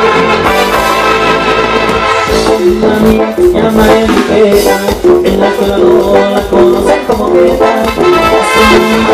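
Live band music: an instrumental dance passage with keyboards and horn-like melody lines over a steady, regular beat, and no singing.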